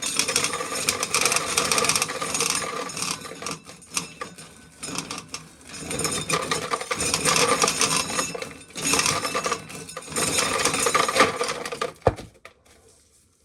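Dry ear corn being shelled, with loose kernels rattling and clattering down into a pail in a dense, uneven run with a couple of short lulls. A single sharp knock comes near the end, then the rattling stops.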